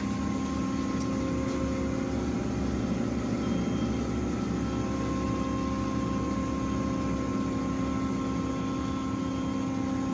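Monarch 612 tool room lathe running with its spindle at 330 RPM: a steady mechanical hum with a few constant whining tones that holds even throughout.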